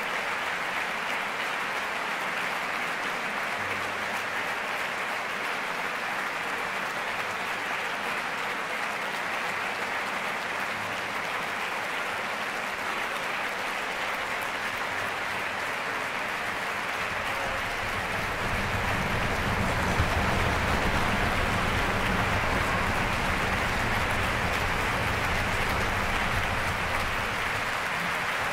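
Concert-hall audience applauding steadily; about two-thirds of the way through the applause grows a little louder, with a deeper rumble beneath it.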